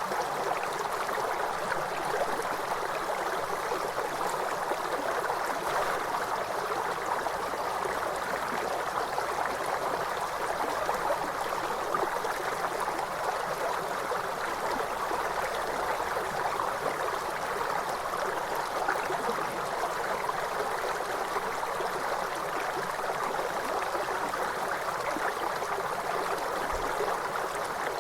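River water flowing steadily: a constant rush and gurgle of a stream that holds the same level throughout.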